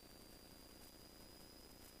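Near silence: faint hiss with a thin, steady high-pitched whine, likely electronic noise from the recording.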